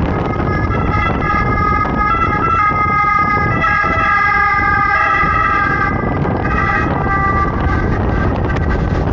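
Ambulance siren sounding, growing loudest in the middle and fading away near the end, over steady low wind and road noise from a moving motorcycle.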